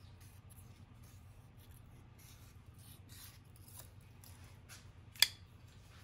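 Faint swishes of a sharp knife blade slicing through paper, several strokes, then one sharp click about five seconds in.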